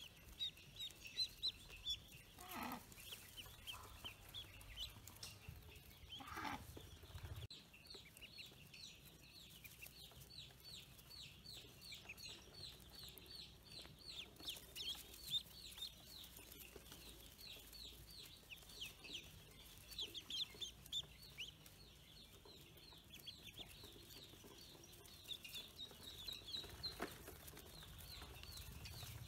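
A crowd of newly hatched ducklings peeping: many short, high peeps overlapping, several a second, without a break.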